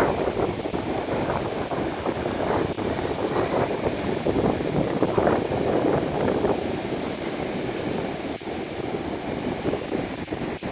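Hurricane wind buffeting the microphone over rough, surging water, gusting unevenly throughout.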